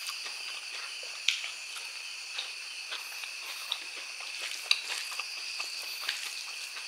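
Close-up eating sounds: wet chewing, lip smacks and fingers squishing rice, with sharp clicks, the loudest about a second in and near five seconds. Behind them runs a steady high drone of insects.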